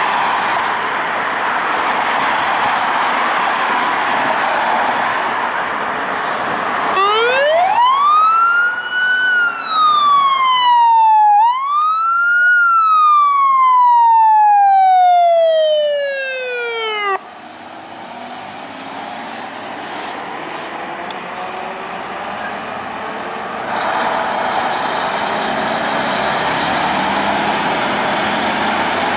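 Heavy diesel emergency vehicles running as they pull out. An electronic siren then wails: it rises, dips, rises again, winds down in one long fall and cuts off suddenly. Later, a heavy truck engine passes.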